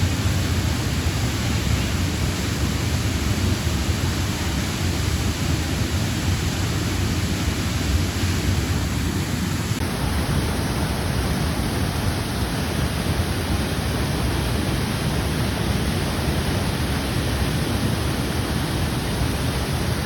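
Loud, steady rushing water, like a waterfall or fast river, that fills the whole sound with a deep, even rush. It shifts slightly about halfway through.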